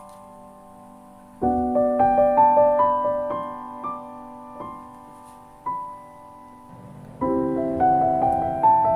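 Background piano music: slow, gentle chords with rising runs of notes, a fresh chord struck about a second and a half in and again near the end.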